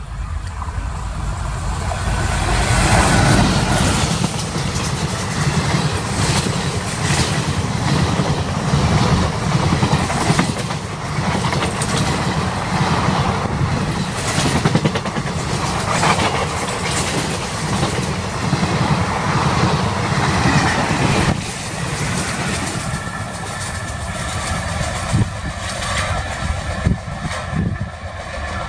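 Express passenger train hauled by a WAP-4 electric locomotive passing close at speed, its ICF coaches' wheels clattering and rumbling over the rails. About 21 seconds in the sound cuts to a quieter, more distant train running on the line.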